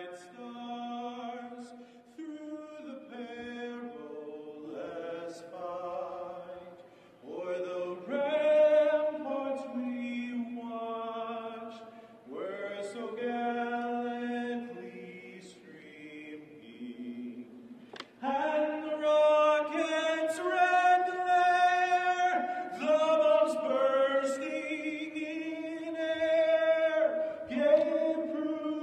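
Slow choral chanting: voices holding long notes that move step by step from one pitch to the next, growing fuller and louder about two-thirds of the way through.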